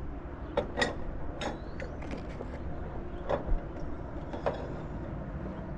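Several separate clicks and knocks of tools and metal parts being handled, over a steady low background noise.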